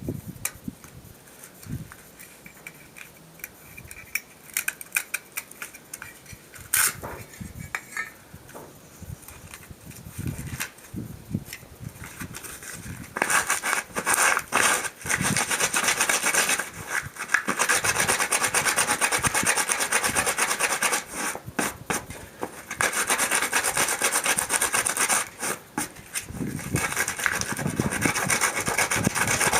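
Sandpaper scraping over the dry, stiff skin side of a tanned sheep pelt to smooth off the rough, knobbly bits. Light handling and scattered small clicks at first, then from about halfway in a loud, steady rasping that stops briefly here and there.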